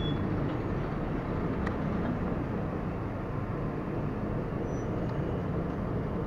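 Diesel shunting locomotive running steadily as it hauls a second locomotive slowly along the track, a steady low rumble with a few faint clicks from the moving stock.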